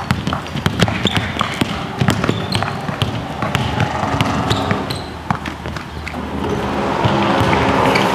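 Basketball dribbled fast on a court: a quick, irregular run of sharp bounces. A steady hum grows louder over the last couple of seconds.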